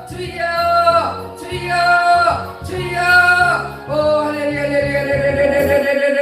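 A lead voice over gospel keyboard accompaniment with a steady bass line: three short held phrases, then one long held note with vibrato from about four seconds in.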